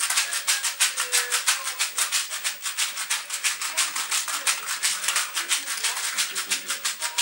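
Several baby rattles shaken together over a pram in a fast, steady rhythm, about six or seven shakes a second.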